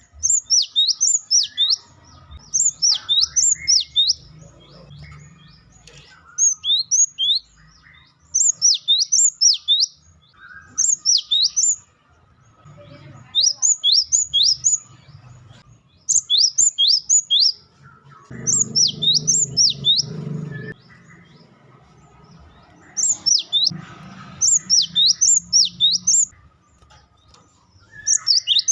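Cinereous tit (gelatik batu) calling in fast bursts of three to six high, sweeping notes, a burst every two to three seconds.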